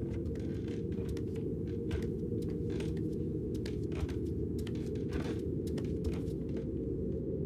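Light footsteps of a small creature walking, quick irregular taps about three a second, over a steady low rumble.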